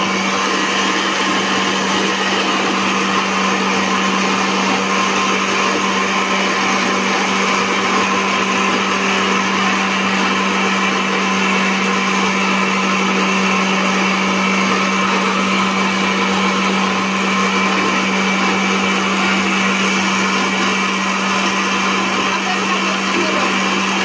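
Electric mixer grinder running at a steady speed, its small steel jar blending milk and banana into a banana shake, with a steady low hum under the motor's whine.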